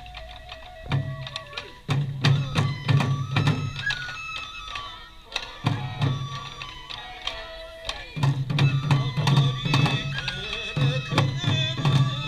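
Sansa dance festival music: Japanese drums beating a steady rhythm under a high stepping melody, with sharp percussive strikes. The drums pause briefly twice midway.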